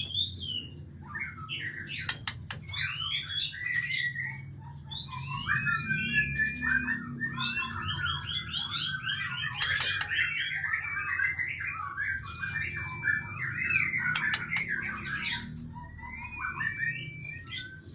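A songbird singing a long, varied song of rapid chirps, trills and held whistled notes, over a steady low hum.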